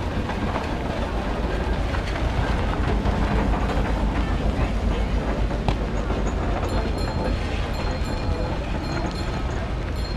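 Steam traction engine of the roller type driving slowly along a gravel track: a steady, rumbling run of its steam engine and moving iron wheels, with a faint ticking from about six seconds in.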